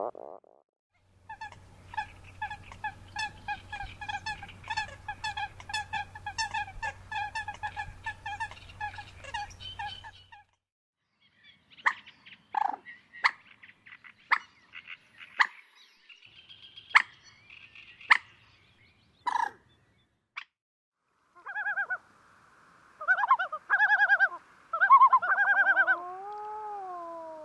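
Recorded water-bird calls in three runs. First a fast, even chattering call for about nine seconds over a faint hum. Then a series of short, sharp common moorhen calls, and near the end the yellow-billed loon calling, finishing with long rising-and-falling wails, the loudest calls here.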